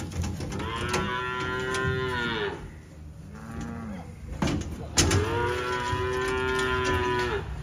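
Calves bawling: two long, high calls that rise and then fall away, with a shorter, lower call between them. A sharp knock comes about five seconds in.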